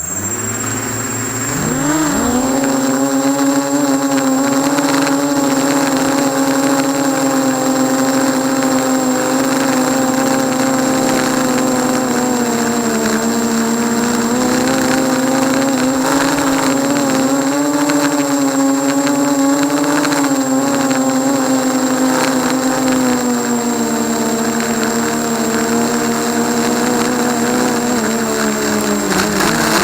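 ZMR 250 racing quadcopter's motors and propellers buzzing in flight. The pitch climbs about two seconds in, then wavers up and down with the throttle and drops briefly near the end.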